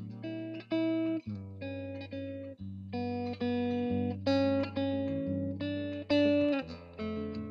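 Guitar tune played as background music: a run of plucked notes and chords, several a second, over held low bass notes.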